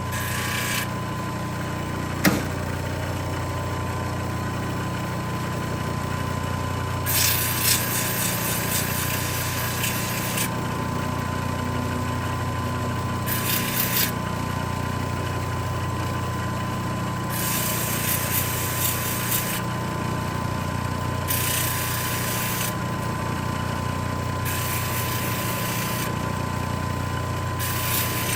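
CabKing 8 cabbing machine's motor running steadily with a low hum. A small metal ring component is pressed against its wet spinning wheel in about six spells of hissing grinding, one to two seconds each, to sand and polish the component flat. A single sharp click about two seconds in.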